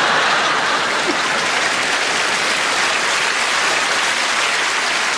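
Studio audience applauding steadily in response to a comedy punchline.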